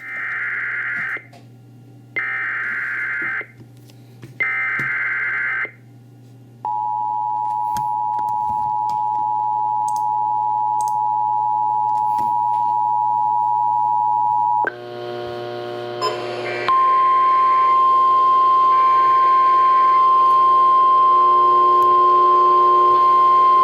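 Emergency Alert System activation: three short screeching digital SAME header bursts, about a second apart, then the two-tone EAS attention signal held steady for about eight seconds. About fifteen seconds in, a second alert takes over with a single steady, slightly higher-pitched tone.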